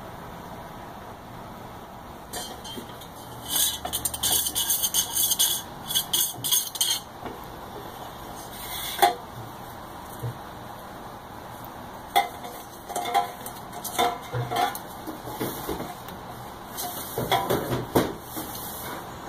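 Handling noise at stainless steel herb tincture presses: a few seconds of crinkly rustling, then scattered clinks and knocks of stainless steel press parts as a mesh press bag is fitted into a press basket.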